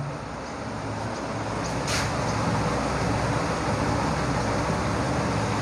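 Steady rushing background noise with a low hum. It grows louder over the first two seconds and then holds, with one brief high scratchy sound about two seconds in.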